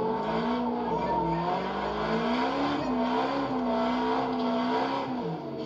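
Drift car's engine revving up and down as the car slides, its pitch rising and falling over and over, with tyre noise underneath.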